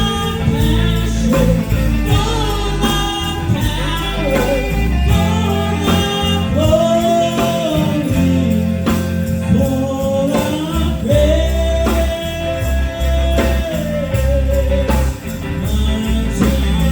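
Live gospel song: a voice sings long held notes over a band with steady bass and a regular beat.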